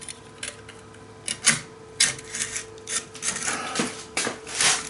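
Irregular metallic clinks and knocks from metal parts and tools being handled, with a denser rattle near the end, over a faint steady hum.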